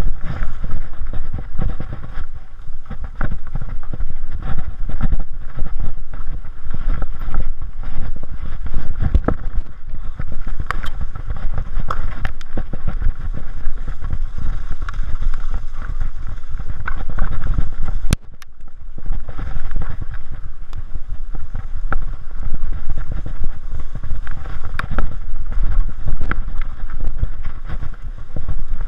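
Mountain bike descending a rough dirt forest trail, heard through an onboard action camera: a constant rumble of wind and tyres on dirt, with rattles and knocks from the bike over roots and bumps. There is a brief lull about two-thirds of the way through.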